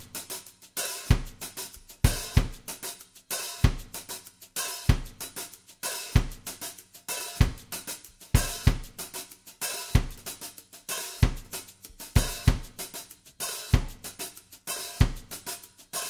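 Backing music of a drum kit playing a steady beat, with a strong kick-and-snare hit about every second and a quarter and cymbal and hi-hat ticks in between.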